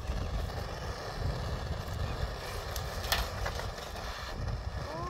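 Handheld butane gas torch on a screw-on canister burning steadily as it is held into kindling to start a fire, with a few sharp snaps about three seconds in.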